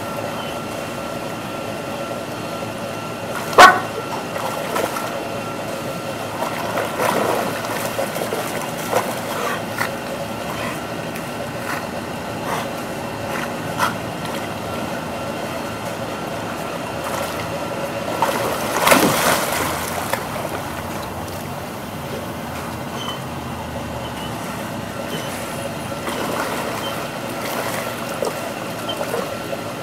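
German Shepherds wading and splashing in pool water over a steady background hum, with one sudden loud sound a few seconds in and a louder stretch of activity about two-thirds of the way through.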